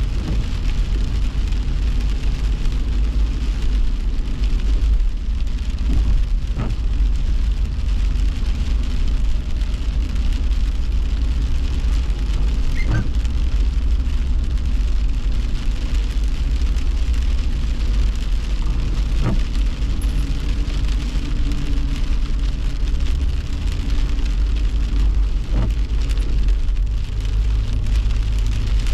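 Heavy rain falling on a car's windshield and roof, heard inside the cabin while driving, over a steady low road and engine rumble. A faint tick comes about every six seconds.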